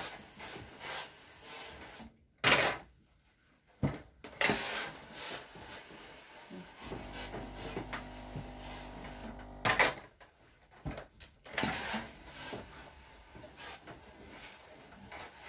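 Clothes iron being worked over laundry: handling knocks, two sharp loud ones about two and a half seconds in and near ten seconds, with a steady electric buzz for about three seconds in the middle.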